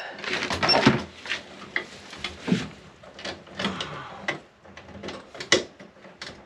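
Hand-tool handling noise at an electrical wall box: irregular clicks, knocks and short scraping rustles as pliers and wires are worked.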